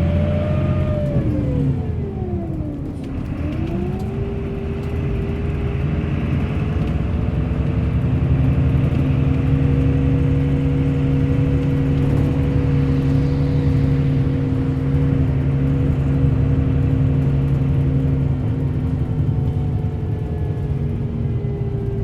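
Bus engine running under way. Its pitch drops about two seconds in, then climbs and holds a steady drone with a faint whine, easing down slightly near the end, over road rumble.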